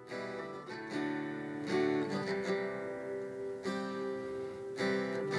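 Acoustic guitar strummed in a slow pattern, each chord ringing on between strums: the introduction to a song.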